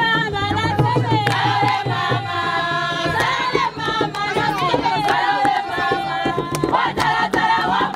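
Music with several voices singing together over a steady low bass.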